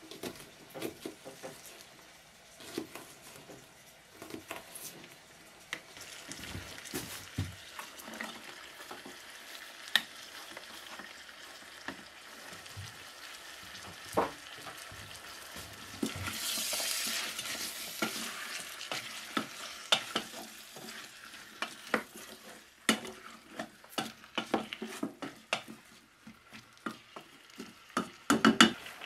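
A knife chopping onion on a plastic cutting board at first, then chicken, onion and celery sizzling in a steel pot on a wood stove, stirred with a wooden spoon that scrapes and knocks against the pot. The sizzle is loudest a little past the middle, and a quick run of sharp knocks comes near the end.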